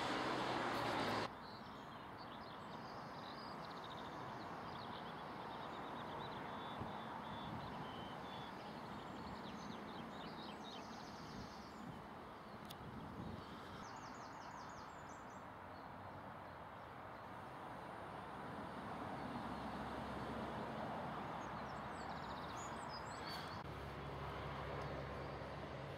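Road traffic noise that cuts off about a second in, then outdoor ambience: small birds chirping now and then over a steady background hiss.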